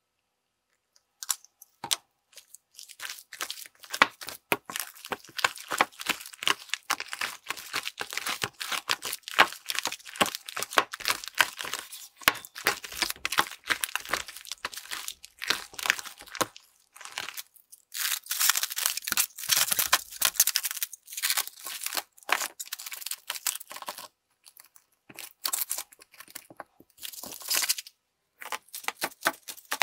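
Large batch of crunchy, bubbly fluffy slime being squeezed and kneaded by hand: dense, irregular crackling and popping with short pauses, starting after about a second and a half of silence.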